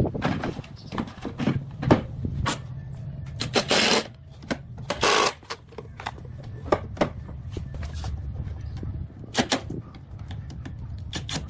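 Irregular clicks and knocks of tools and wood being handled in a workshop, with two short hissing bursts a little before and after the middle, over a steady low hum.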